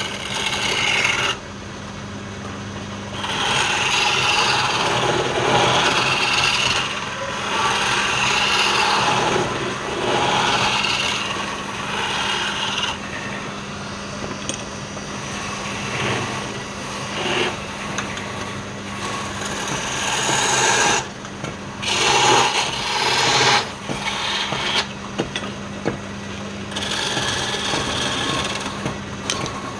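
Wood lathe motor humming steadily while a tool scrapes against the spinning wood in repeated passes of a second or two, with a brief pause about a second in and a few sharper bursts between about 21 and 24 seconds.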